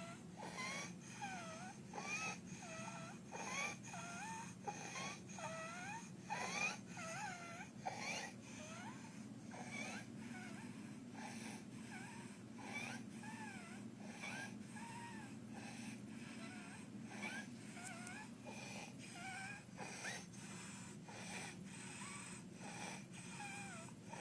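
Croup: a child's noisy breathing with high-pitched stridor, a whistling tone that rises and falls in pitch, breath after breath, mixed with harsh barking coughs. The stridor and the seal-like barking cough are the signs of the upper airway narrowed by swelling below the voice box.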